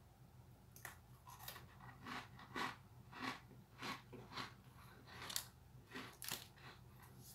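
A man chewing a dry, crunchy packaged cookie with his mouth closed: faint, soft crunches about twice a second.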